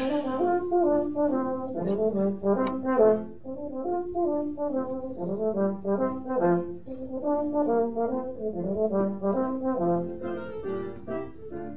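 A solo brass instrument playing a melodic passage of quickly changing notes.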